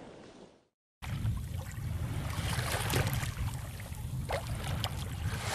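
Sea water splashing and lapping over a steady low rumble, cutting in suddenly about a second in after a brief silence.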